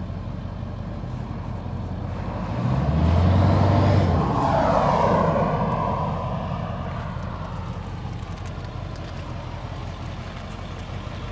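A road vehicle driving past, growing louder to a peak about three to five seconds in and then fading away over the next few seconds.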